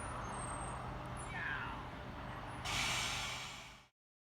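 Train at the platform with a steady low hum, then a loud hiss of compressed air from its air brakes lasting about a second, before the sound cuts off abruptly.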